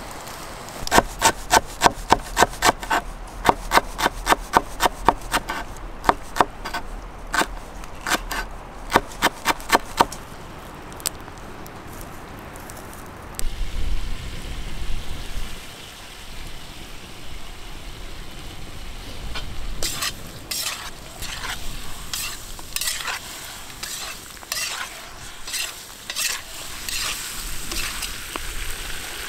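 A slotted metal ladle stirring and scraping meat and potatoes frying in a cast-iron cauldron over an open fire. For the first ten seconds it strikes the pot about three times a second with a metallic ring, over a steady sizzle. Later the scrapes come irregularly while the food keeps sizzling.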